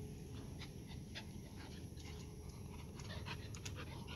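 A dog panting, short quick breaths in irregular runs over a steady low background rumble.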